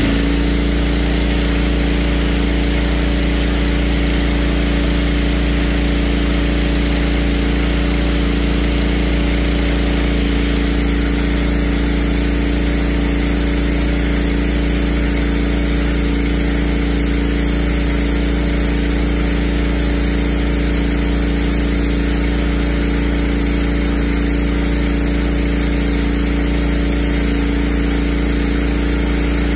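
Pressure washer running steadily: the machine's constant hum under the hiss of its water jet blasting concrete. The high hiss lessens about ten seconds in.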